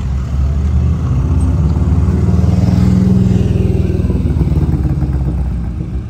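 A vehicle engine running at low revs, a low rumbling note that grows louder toward the middle and eases off near the end.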